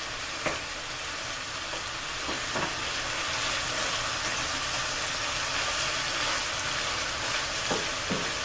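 Ground beef and onions sizzling steadily in a skillet while a wooden spoon stirs them, with a few light knocks of the spoon against the pan.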